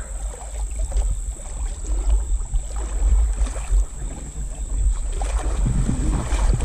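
Wind buffeting the microphone as a loud, uneven low rumble that comes up at the start, over a steady high-pitched insect drone.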